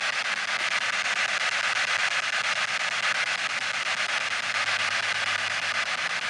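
Handheld spirit box radio sweeping the band, giving out a steady hiss of radio static with a fast, even flutter.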